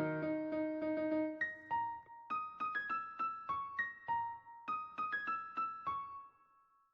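Background piano music: a held chord gives way to a sparse run of single high notes, each struck and left to ring, fading out to silence near the end.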